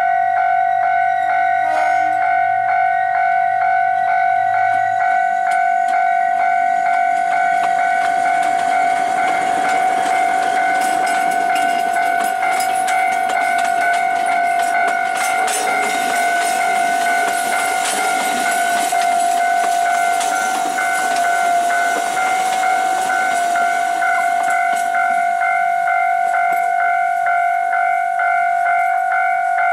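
Level-crossing warning bell ringing over and over without a break while an Alishan Forest Railway diesel-hauled train passes. Its wheels click over the rail joints, loudest through the middle as the carriages go by.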